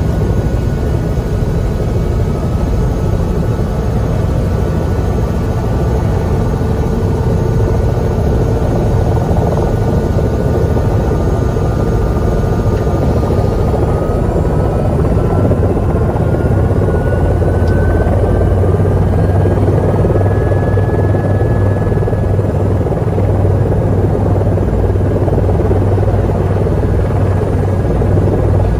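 Helicopter turbine engine and rotor running steadily on the ground, heard from inside the cabin: a dense low rumble with a thin whine whose pitch edges up about halfway through.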